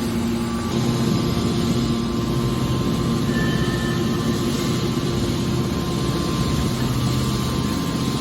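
Hydraulic waste metal baler's power unit running: a steady machine hum from its electric motor and hydraulic pump.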